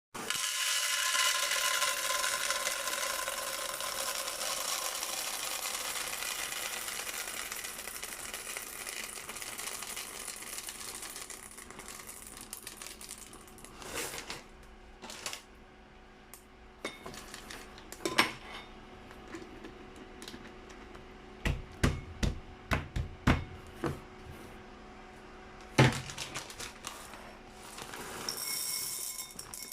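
Dry elbow macaroni rattling and clicking: a dense, steady pouring rattle of many small pieces that thins out over about twelve seconds, then scattered single clicks and a handful of sharper knocks.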